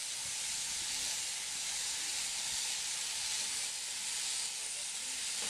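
Electric sheep-shearing handpiece, driven through a jointed overhead drive arm, running steadily as it cuts through the fleece: a continuous high hiss.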